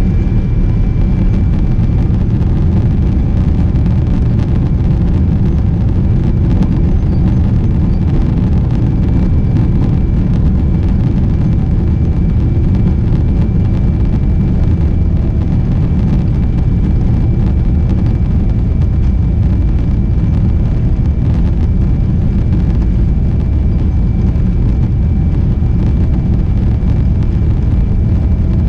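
Cabin sound of a Boeing 777-300 on its take-off roll: a loud, steady rumble from its Rolls-Royce Trent 800 engines at take-off thrust and from the wheels on the runway, with a faint steady high whine.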